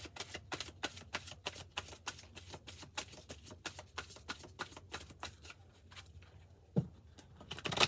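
Deck of oracle cards being shuffled by hand: a quick, dense run of soft flicking clicks that thins out after about five seconds, followed by two sharper taps near the end.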